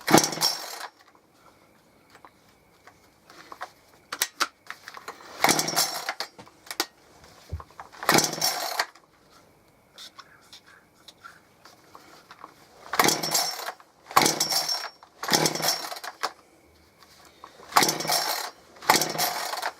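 Gardenline GLPC 41 two-stroke chainsaw being pull-started with the choke on: about eight short pulls on the recoil starter, the engine turning over briefly each time without catching.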